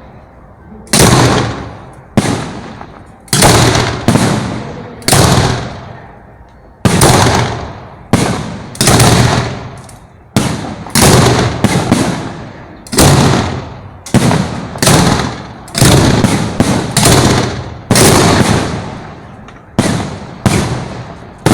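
Fireworks bursting at close range: a long run of loud bangs, roughly one a second and sometimes two in quick succession, each dying away over about a second.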